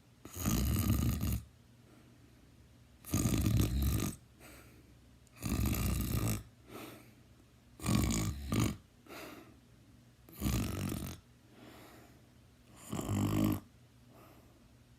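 A teenager snoring: six loud snores, each about a second long, coming roughly every two and a half seconds, with fainter breaths between them.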